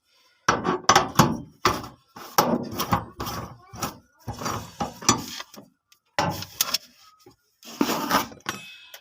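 Repeated irregular knocking and clanking of tools and metal parts on a washing machine being reassembled, its bolts tightened and its pulley fitted.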